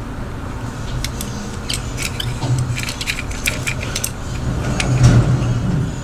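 A run of small, sharp clicks and taps from a steel digital caliper's jaws being slid and a plastic pocket knife sharpener being turned and set between them. Under it is a low steady hum that swells briefly near the end.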